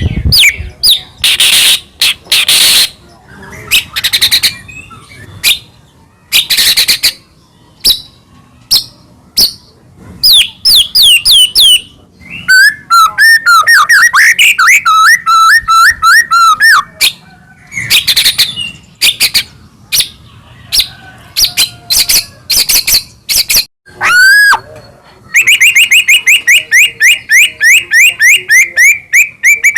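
White-rumped shama (murai batu) singing loudly: a varied song of separate whistled phrases and sweeping notes with short pauses, a dense rapid warbling run around the middle, and near the end a fast, even string of repeated notes.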